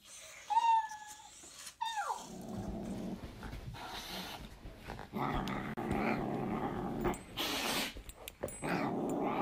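A short high call, then, from about two seconds in, long low growling with brief pauses as a cat and a yellow Labrador tussle.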